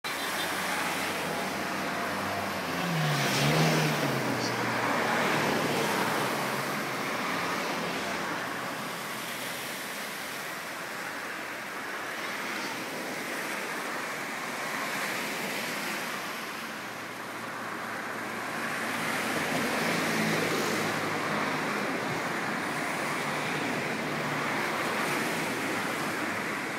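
Small sea waves washing against shoreline rocks, the noise swelling and easing, with the hum of passing road traffic mixed in. One vehicle goes by loudest about three to four seconds in.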